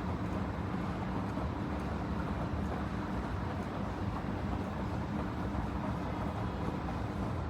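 Panasonic XQG32-A312D compact washing machine running with a steady low hum.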